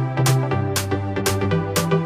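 Electronic background music with a steady beat of about two hits a second over a pitched bass line.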